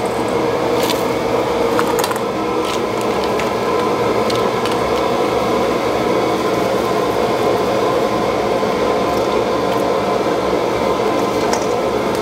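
Steady mechanical drone of a restaurant kitchen, from the wok burners and ventilation, with a few light clicks of shellfish and bowls being handled.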